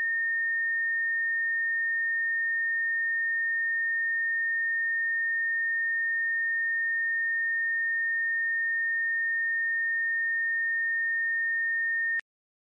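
A single steady, high-pitched electronic sine tone, one pure note held without change, cutting off abruptly with a click near the end.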